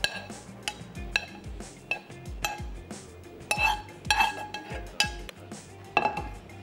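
Metal utensils and serving dishes clinking again and again as fruit is served out, over background music with a steady low beat.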